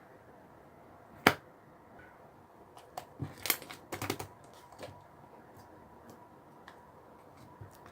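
Slime being squeezed and pressed: one sharp pop about a second in, then a quick run of crackling pops and clicks around three to four seconds in, with faint ticks after.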